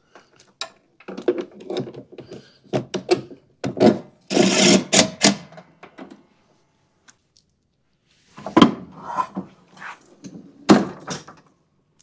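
Cordless drill driving screws back into a mower's plastic housing: a short run of the drill about four seconds in, among clicks and knocks of the tool and parts being handled.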